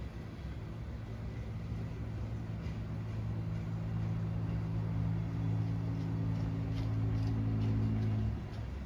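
A low engine hum that grows louder over several seconds, then cuts off suddenly near the end.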